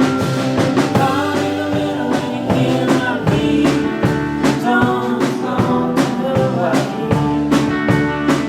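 Live indie rock band playing a song, with guitars over a steady drum beat.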